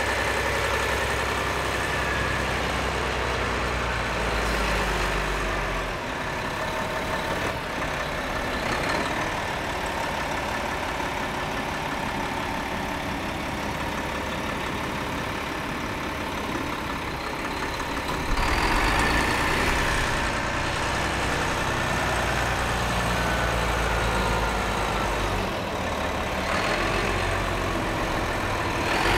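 Diesel engine of a Volvo A30G articulated dump truck running at low revs as it creeps forward, growing louder about eighteen seconds in as it pulls up onto a lowbed trailer.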